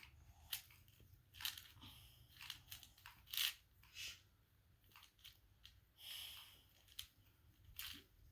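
Plastic 2×2 Rubik's speed cube being turned, its layers giving faint, irregular clicks and scrapes as they rotate.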